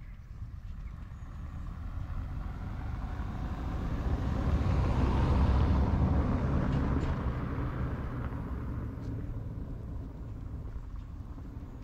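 A motor vehicle drives past, growing louder to a peak about halfway through and then fading away.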